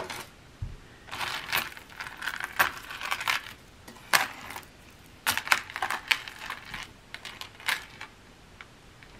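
Costume jewelry clinking and rattling as it is handled: several uneven runs of small, sharp metallic and bead clicks, with short gaps between them.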